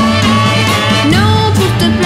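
Background music: a song with bass and drums and a sung melody line that glides in pitch about a second in.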